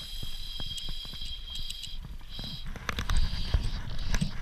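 A fly reel's click-pawl drag buzzing as a hooked salmon pulls line off it: one long high buzz for about two seconds, then several shorter bursts as the fish keeps running. Low rumble of river water and handling noise underneath.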